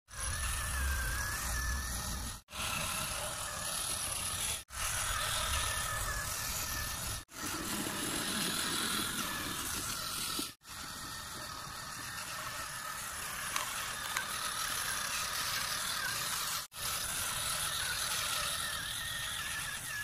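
Small electric motors and gearboxes of radio-controlled toy vehicles whirring and rattling with a wavering whine. The sound comes in several stretches, each broken off abruptly for a moment.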